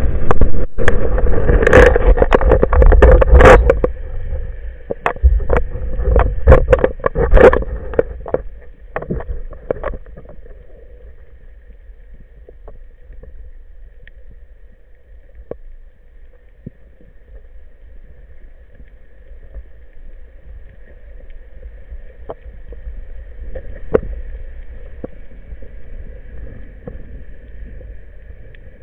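Underwater sound picked up by a diver's camera in its waterproof housing: water rushing with a rapid run of knocks and clicks for the first ten seconds or so, then a quieter steady hum with a faint high whine and a few scattered clicks.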